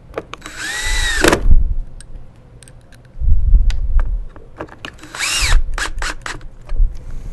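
Cordless drill-driver driving screws into a wet/dry vacuum's motor mounting plate, in short runs: twice its motor whine rises and then falls as it spins up and stops, with a lower rumbling run between and a few clicks and knocks.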